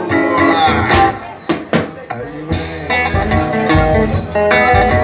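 Live acoustic guitar strumming with hand percussion keeping the beat, an instrumental passage between sung lines.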